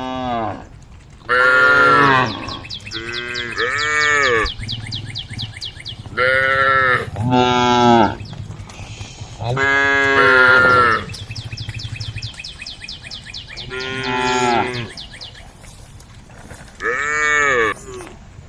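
Cows mooing, calling to the herd: about nine loud calls in turn, each about a second long and arching up then down in pitch. A fainter high buzzing carries on between the calls.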